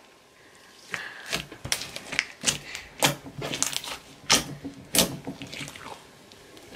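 Gold metallic slime being mixed and kneaded by hand with gold leaf flakes worked in. It makes irregular wet clicks and pops, about two a second, starting about a second in and dying away near the end.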